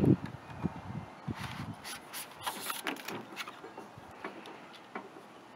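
Light handling noises of a windshield wiper blade: a knock at the start, then brief rubbing and rustling with a few light clicks as the blade is picked up and moved.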